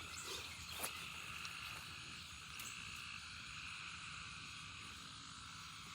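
Steady chorus of calling frogs, two unbroken high-pitched bands over a low rumble, with a single short knock about a second in.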